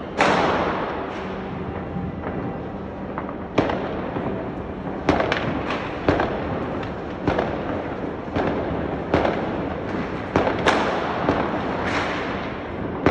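Fireworks going off among city buildings: a steady rumble of distant bursts, broken by sharp bangs that ring briefly off the buildings. The bangs come more and more often, about one or two a second in the second half.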